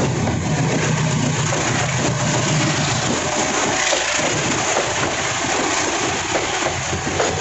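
Container freight train rolling past at speed: a steady, loud rush of wheels on rail, with a passenger train passing on the next track partway through.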